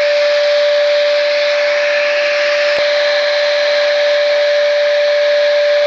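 Electric paint spray gun running steadily: a constant motor whine over the hiss of air and spray, with a faint click about halfway.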